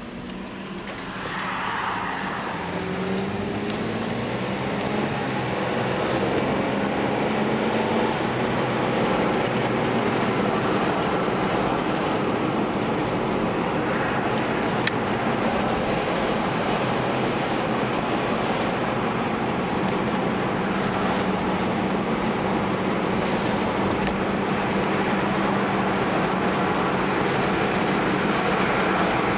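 Car engine and tyre road noise heard from inside the cabin. The engine rises in pitch as the car pulls away and gathers speed over the first few seconds, then settles into a steady rush of road noise while cruising.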